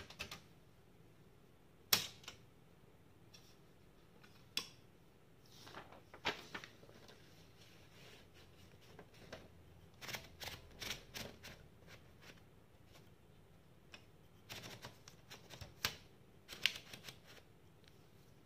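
Smith-Corona Galaxi Deluxe manual typewriter clicking and clacking. Its keys and mechanism strike irregularly, in single strokes and short runs.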